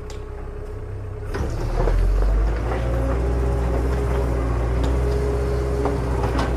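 A vehicle engine running with a steady low rumble that grows louder about a second and a half in, with a few faint clicks.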